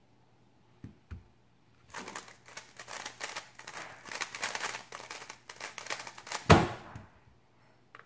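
A GAN 356 XS 3x3 speedcube being turned at full speed: a rapid, dense clatter of plastic clicks lasting about four and a half seconds, ending in one loud thump as the hands slap down on the stackmat timer to stop it.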